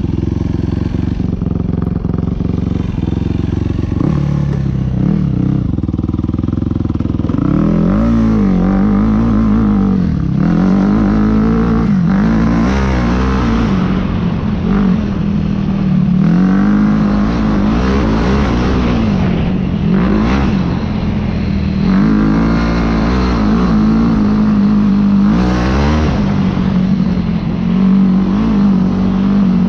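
Quad (ATV) engine under riding, running steadily for the first few seconds and then revving up and dropping back again and again as the rider accelerates and lets off.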